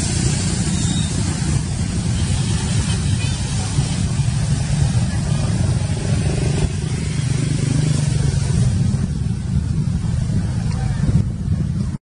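Steady low rumbling background noise with no clear calls, cutting off suddenly at the very end.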